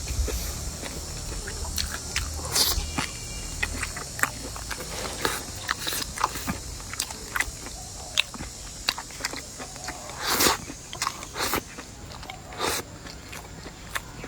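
Close-miked eating sounds: chewing and biting with irregular wet clicks and crunches, and a few louder smacking bursts.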